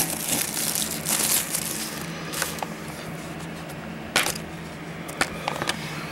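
Cellophane shrink-wrap crinkling as it is torn and peeled off a plastic Blu-ray case, densest over the first two seconds. Then a few sharp clicks and taps as the case is handled, the loudest about four seconds in.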